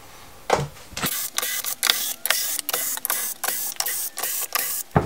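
Cordless drill-driver running in reverse, backing the screws out of a screwed-down wooden box lid. The motor sound comes in short pulses about three a second, from about a second in until just before the end.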